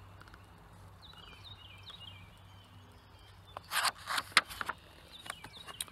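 A hardcover picture book's page being turned, with a short burst of paper rustling past the middle. Faint bird chirps come before it.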